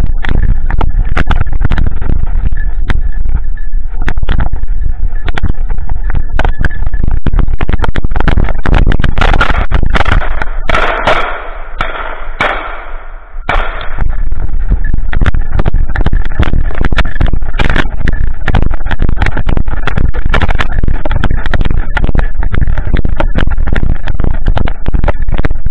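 Loud, rumbling handling noise from a camera strapped to a running golden retriever: the microphone is jostled and rubbed by fur and brush, with constant clicks and knocks. The rumble eases for a few seconds in the middle, then comes back.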